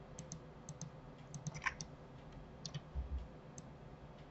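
Faint, irregular light clicks of a computer mouse and keyboard being worked, about a dozen taps, with a soft low thump about three seconds in.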